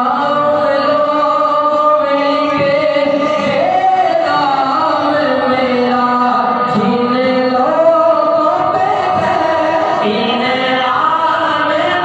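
A man singing an Islamic devotional song into a microphone, drawing out long, wavering melodic notes with short breaks between phrases.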